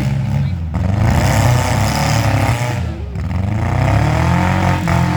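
Demolition derby cars' engines revving loudly, their pitch rising and falling repeatedly as the cars push against each other.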